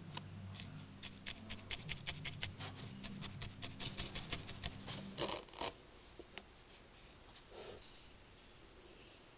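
Felting needle stabbing rapidly into wool on a foam felting pad: a quick run of sharp, scratchy pricks, about five a second, that stops a little past halfway. After it come only a few faint rustles of handled wool.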